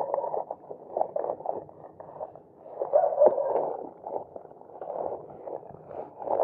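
Beach pebbles crunching and clicking irregularly, in uneven clusters of short clicks.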